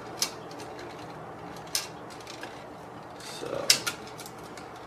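A light fixture being handled: a few sharp, spaced-out clicks and small rattles of its parts, the loudest pair about three and a half seconds in.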